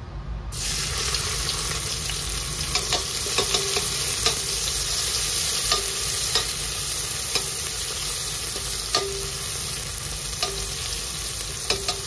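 Sliced onions hit hot ghee in a stainless steel pot and start sizzling suddenly about half a second in, a steady hiss that carries on as a metal ladle stirs them, with frequent clinks and scrapes of the ladle against the pot.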